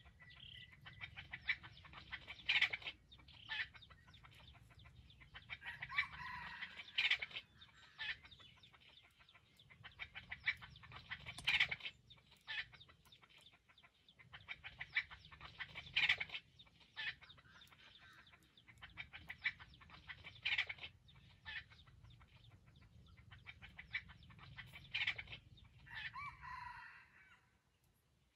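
Junglefowl (wild chicken) clucking in rapid runs, with a few crows among them.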